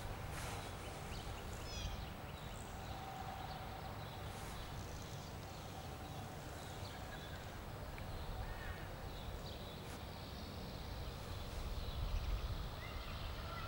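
Quiet outdoor ambience: a steady low rumble of wind and handling on the camera microphone, with a few faint bird chirps.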